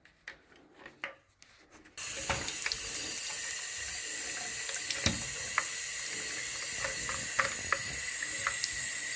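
Bathroom basin tap turned on suddenly about two seconds in, then running steadily over a plastic toilet-cistern flush valve held under the stream while fingers rub leftover rubber off it, with small clicks of handling. Before the water starts there are only faint rustles and clicks of paper towel wiping.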